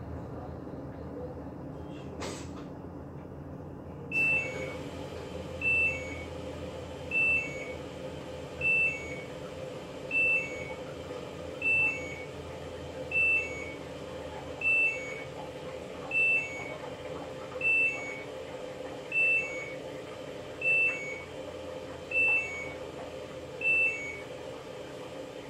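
Washing machine alert beeping: a short two-note falling beep repeated evenly about every second and a half, fourteen times, starting about four seconds in, over a steady low hum.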